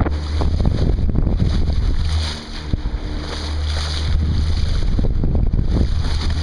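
Wind buffeting the microphone over the rush of water along the hull of a sailboat under way.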